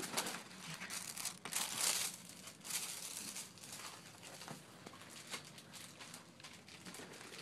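Paper and plastic packaging crinkling and rustling as items are unpacked from a box, loudest about two seconds in and quieter afterwards.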